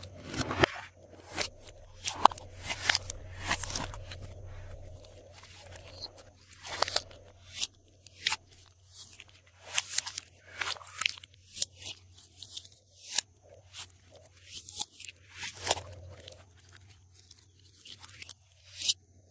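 Glossy slime being pressed and mixed by hand, making irregular sticky crackles and popping clicks, several a second.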